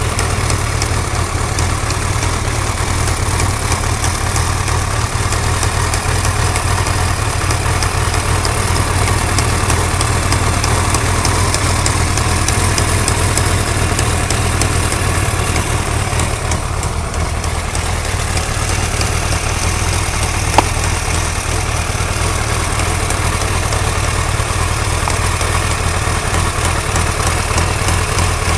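Suzuki GSX-R1100 inline-four engine idling steadily, with a light, rapid ticking over the top. There is one sharper click about two-thirds of the way through.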